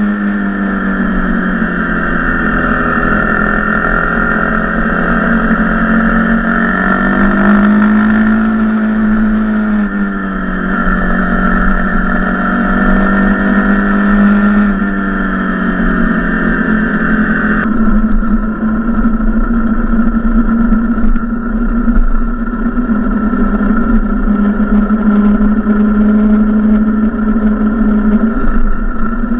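Dirt bike engine running while riding, its pitch rising and falling with the throttle, with an abrupt change in tone a little past halfway.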